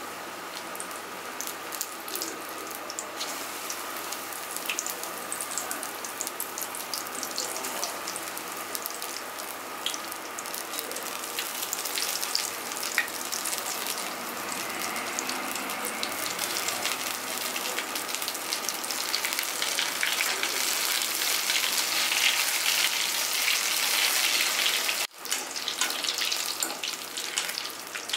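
Batter-coated cauliflower florets deep-frying in hot oil: a steady sizzle full of small crackling pops that grows louder as more pieces go into the pan. It breaks off for an instant near the end.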